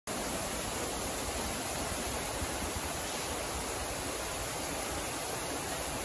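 Thin waterfalls falling down a rock cliff into a rocky pool: a steady, unbroken rush of water.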